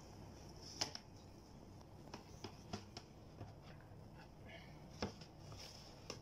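Large kitchen knife slicing a baked pizza in a metal baking tray: scattered light clicks and taps as the blade cuts through the crust and meets the tray, the loudest about five seconds in.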